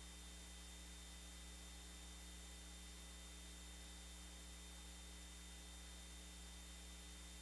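Near silence: a faint, steady electrical hum with a low hiss under it.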